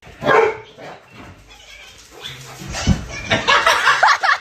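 A dog giving a fast run of short, high yips and whines in the last second, after a loud short burst of sound near the start.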